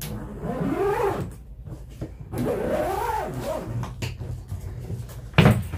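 Rooster crowing twice, each crow rising and then falling in pitch. Near the end comes a single sharp thump, the loudest sound.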